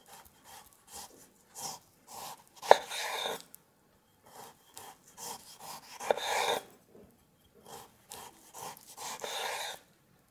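Kitchen knife sawing through a slab of guanciale (cured pork jowl) on a wooden cutting board. Short back-and-forth strokes, with a louder, longer stroke about every three seconds, two of them opening with a sharp knock.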